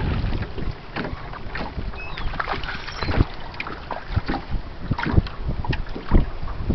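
Small waves slapping irregularly against the hull of a drifting 14-foot aluminum Monark boat, with wind on the microphone and a few faint high gull cries.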